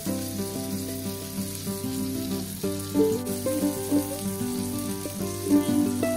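Stuffed bell peppers sizzling in hot oil in a frying pan, with instrumental background music over it.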